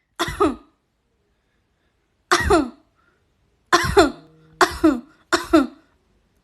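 A girl coughing in a bad fit: five harsh coughs, one, another about two seconds later, then three in quick succession, each a short double bark. It is a persistent cough that she says many medicines have not eased.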